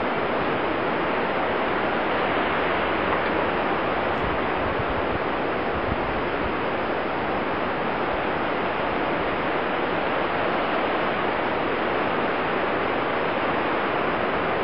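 Steady, even hiss that does not change in level or character.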